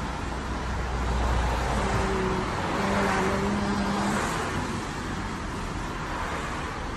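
Road traffic on a residential street: a low engine rumble in the first couple of seconds, then a passing car's tyre noise swelling about three seconds in.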